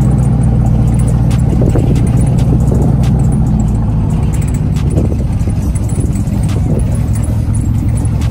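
A vehicle engine running steadily with a low rumble, with a few light clicks over it.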